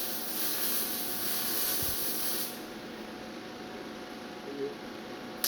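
MIG welder arc on mild steel, a steady hiss that cuts off suddenly about two and a half seconds in.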